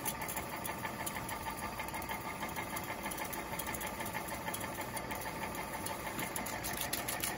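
1969 Rheem Califone 8030T portable reel-to-reel tape recorder rewinding at high speed: a steady mechanical whir of the motor and spinning reels. Light rapid ticking comes in near the end.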